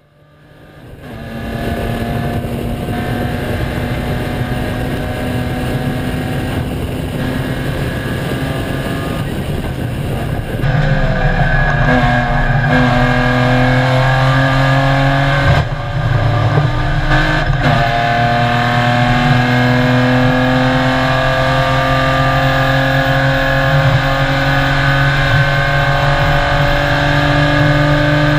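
BMW race car's engine heard from inside the stripped cabin, accelerating with its revs climbing steadily. The pitch drops briefly at upshifts about ten, fifteen and seventeen seconds in. The sound fades in over the first two seconds.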